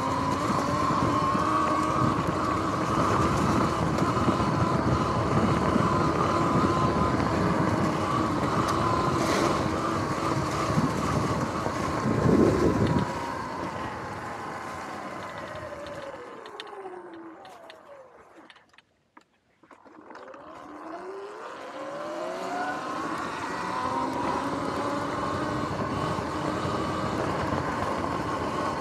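Sur-Ron electric dirt bike's motor whining steadily over the rumble of its tyres on rough ground, with a brief louder rumble about twelve seconds in. Just after, the whine falls in pitch as the bike slows and dies away almost to silence, then rises again as it pulls away.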